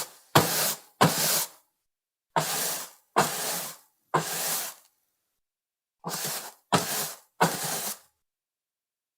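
Flat mop swept across a wooden parquet floor in short swishing strokes, each starting sharply and fading, in groups of three with short pauses between. The strokes stop about a second before the end.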